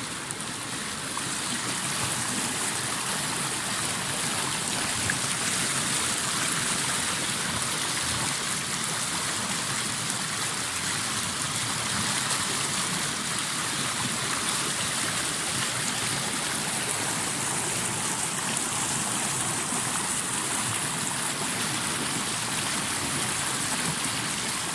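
Steady rush of river water pouring out through the pipes of a concrete culvert and churning into foam in the pool below.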